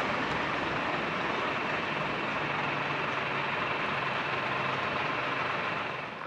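Steady running noise of a heavy vehicle with a faint low engine hum, which stops abruptly near the end.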